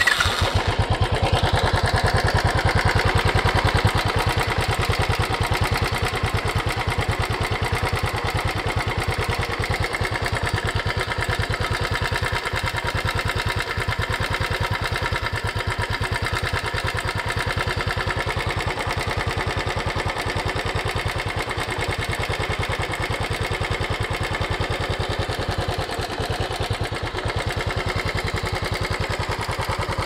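Royal Enfield Twinspark 350 single-cylinder engine idling steadily just after starting, heard close up at the engine. It runs a little louder for the first four seconds or so, then settles into an even idle.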